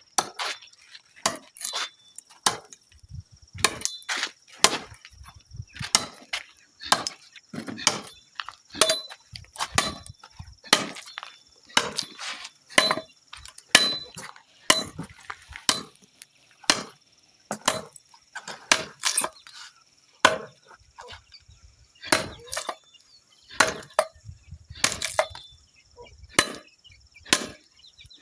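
Repeated blows of a hand tool on wood, about one a second and sometimes two close together, as wood is chopped and shaped.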